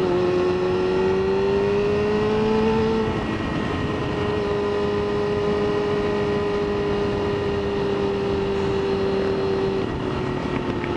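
Motorcycle engine running under way while being ridden. The revs climb over the first three seconds, then hold steady and ease down a little near the end.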